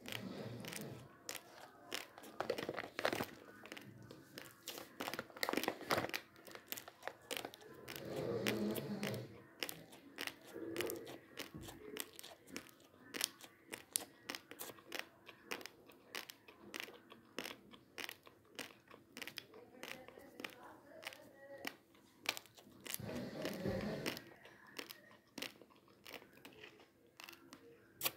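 Crunching and chewing of dry, uncooked basmati rice grains: a rapid run of crisp little cracks as the grains break between the teeth, with a few fuller bouts of chewing.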